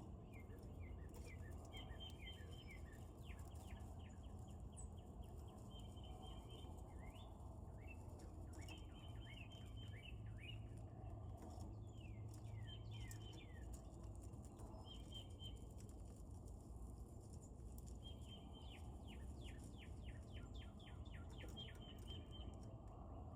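A small bird singing faintly, in repeated phrases of quick falling chirps and short held notes, over a steady low outdoor rumble.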